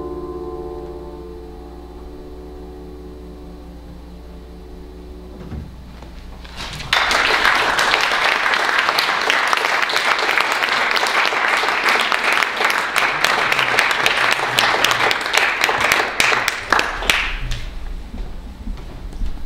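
The last piano chord dies away over a few seconds. Then an audience claps, starting suddenly about seven seconds in, going on for about ten seconds and thinning out near the end.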